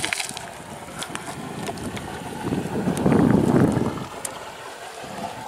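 Wind buffeting the microphone over running water, with a stronger gust of low rumble about halfway through and scattered light clicks.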